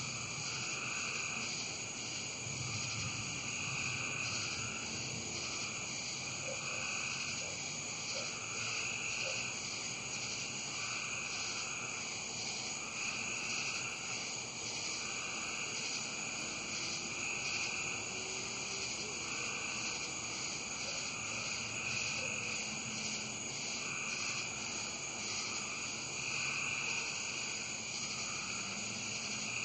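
A chorus of frogs and insects: a steady high insect trilling, with frog calls repeating every couple of seconds.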